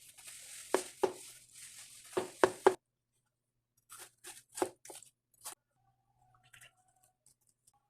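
Knife cutting through ripe watermelon, the crisp flesh crunching and tearing with several sharp strokes; after a short pause, a second run of about five quick cuts.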